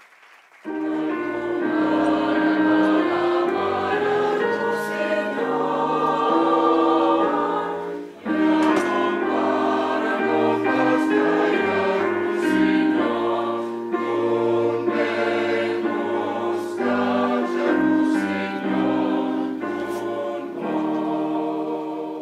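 Mixed choir of men and women singing a slow piece in several parts, with sustained chords over a low line. It breaks off briefly about eight seconds in, then goes on and fades out at the end.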